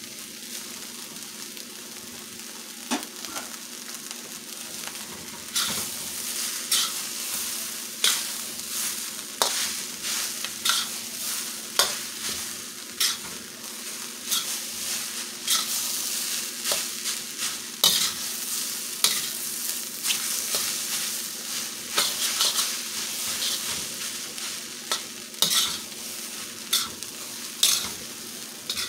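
Rice and vegetables sizzling in a hot steel wok while a metal spatula stirs and tosses them, scraping and clinking against the wok about once a second. The stirring grows brisker and louder about five seconds in.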